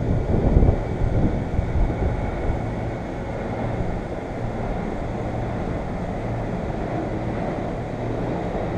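Steady low rumble with wind buffeting the microphone, a few louder low bumps about half a second to a second and a half in.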